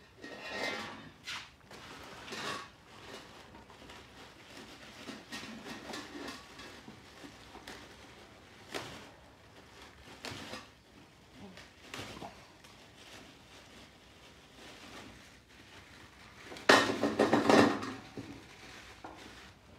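Kitchen clatter of pots, dishes and utensils being handled and scraped, in scattered knocks, with a louder burst about three-quarters of the way through.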